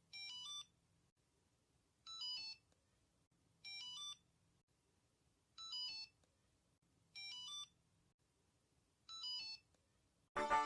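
Short electronic beep sequences over a boot screen: six quick runs of stepped high tones, each about half a second long, repeating every second and a half to two seconds. Just before the end, the ReactOS startup sound, a loud synthesized chord, begins.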